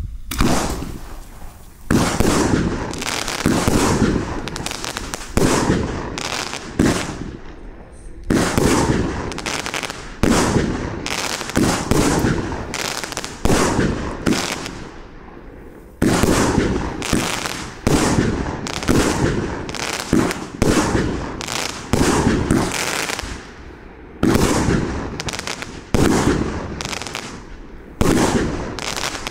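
A 30 mm, 19-shot consumer firework battery (cake) firing tube after tube, with about twenty sharp shots roughly a second apart. Each shot is a bang that fades away over about a second.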